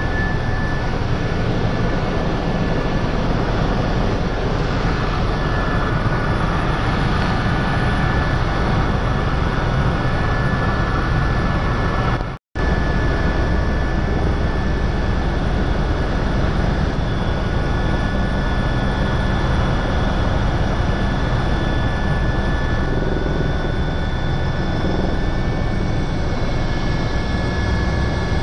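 Helicopter's turbine engine and rotor running in flight, heard inside the cabin: a loud, steady drone with a thin high whine on top. It cuts out for a moment about halfway through.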